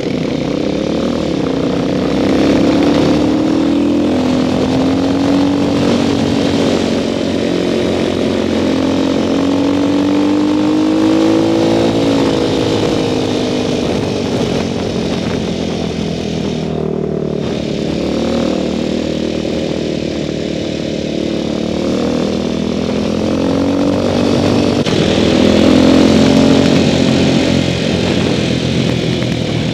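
Motorcycle engine heard on board while riding, its pitch rising and falling several times with throttle and gear changes, over a steady rush of wind and road noise.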